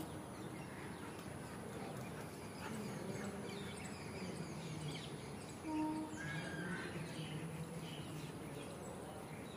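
Outdoor ambience of small birds chirping on and off, over a low background murmur, with one brief pitched call about six seconds in.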